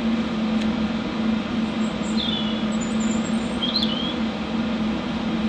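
An HHO (oxyhydrogen) torch flame hissing steadily as it heats a steel bar, over a steady low hum. A couple of brief high chirps come about two and four seconds in.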